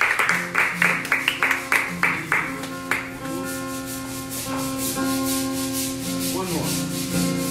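Acoustic guitar strummed hard in a fast, scratchy rhythm of about three or four strokes a second. About three seconds in, the strumming lightens and the chords ring out.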